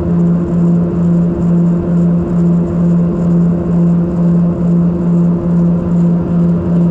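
Let 410 UVP-E20 twin-turboprop airliner in flight, heard from inside the cabin: a loud, steady propeller and engine drone with a throbbing beat about twice a second, the beat of the two propellers turning slightly out of step.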